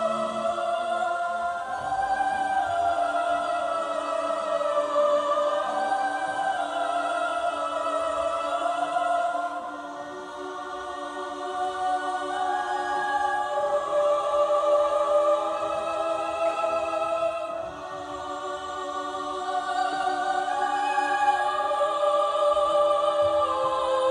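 Slow choral singing: several voices hold long notes that shift slowly in pitch, softening briefly about ten seconds in and again near eighteen seconds.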